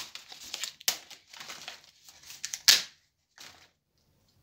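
Mango leaves being snapped and torn off a cutting's green stem by hand: a run of crackly snaps and leaf rustling, the two sharpest about a second in and just before three seconds.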